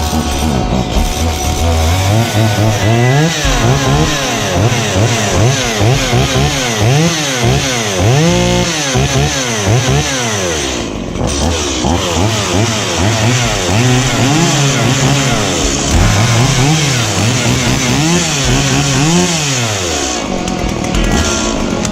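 Stihl MS170 two-stroke chainsaw warming up after a cold start: idling, then revved up and down over and over in quick throttle blips, settling back to idle near the end.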